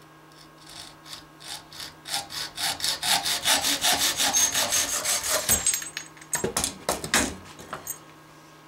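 Hacksaw cutting through a thin metal antenna element rod clamped in a bench vise: rapid back-and-forth strokes that grow louder and quicker, stopping about five and a half seconds in as the cut goes through. A few sharp metallic clanks follow.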